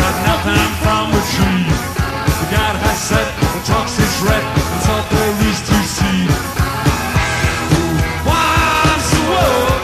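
Rock band playing live with a steady beat; near the end a high line glides up and down over the band.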